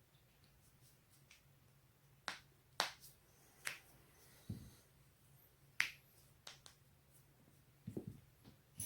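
Joints cracking: about ten sharp pops and clicks in irregular succession, starting a couple of seconds in, some in quick pairs, with one duller, deeper pop near the middle.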